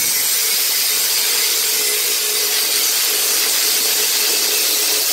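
Electric angle grinder cutting through steel brackets on a mini bike's fender, running under load with a steady whine over a hiss of disc on metal.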